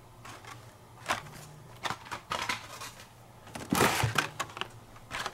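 Blister-carded Hot Wheels cars being handled: plastic blisters and card backs crinkle and clack against each other in short irregular bursts, with a longer, louder rustle about four seconds in.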